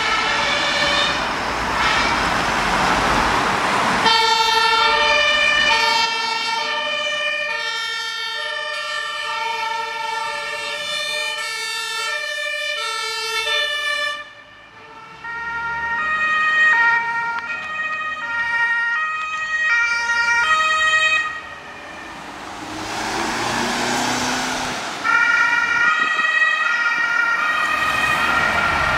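Two-tone German fire-service sirens (Martinshorn) of several fire engines and an ambulance pulling out on a call. Several horns alternate between their two pitches at once and overlap at different pitches. The engine and tyre noise of the heavy trucks driving past swells twice, and the sirens break off briefly about halfway through.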